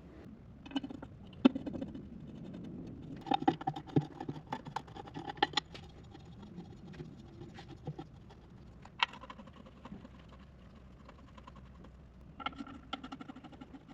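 Hand tools and metal engine parts clicking and knocking as parts are bolted on, with runs of quick clicking near the start, in the middle and near the end.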